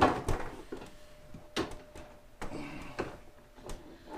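Irregular knocks and clicks of a children's toy car's parts being handled and fitted during assembly, the loudest one right at the start.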